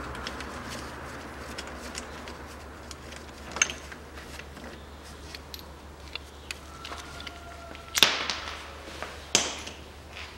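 Small metallic clicks and clinks of a hex-key wrench and the old timing-belt idler pulley being taken off the engine. The loudest is a sharp metal knock about eight seconds in, with others at about three and a half seconds and just over nine seconds.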